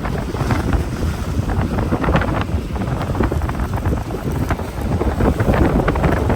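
Strong, gusty wind buffeting the microphone: loud, uneven wind noise.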